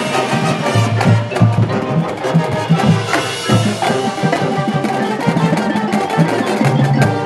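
Drum and bugle corps playing its show: a marching snare line beating rapid strokes over sustained brass chords and low drums.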